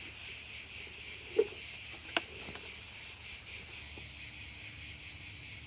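Crickets chirping steadily in a fast, even pulse. Two small knocks about one and a half and two seconds in.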